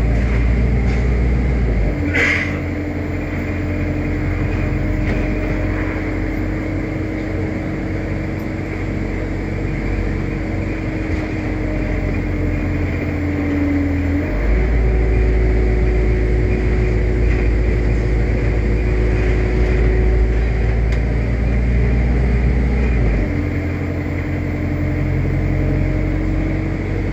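A single-deck bus's engine and transmission heard from inside the saloon under hard acceleration, a loud continuous drone with a deep rumble. Its pitch steps down about two seconds in and again near the end, and steps up about halfway through, typical of an automatic gearbox changing gear. A single sharp knock comes just after the first change.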